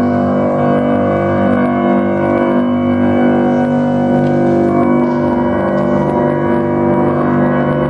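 Grand piano played solo: dense chords held and ringing together, the tones sustained and overlapping in the reverberant church.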